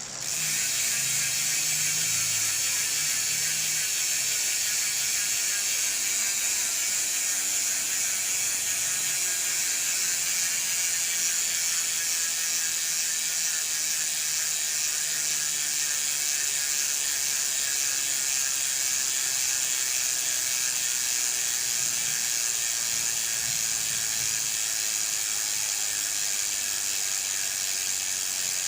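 Rear freehub of an Aeroic 8.7 AM mountain bike ticking as the wheel spins freely: the pawls click so fast that they merge into a steady, high ratcheting buzz. It starts suddenly and fades only very slightly.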